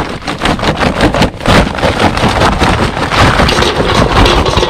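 Charcoal briquettes poured from a paper bag into a small kettle grill, clattering in a dense, continuous rattle of many small knocks onto the wire grate and metal bowl.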